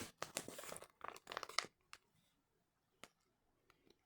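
Crinkling and rustling as the packaging of a firework cake is handled, a quick run of crackles over the first second and a half, then two faint clicks.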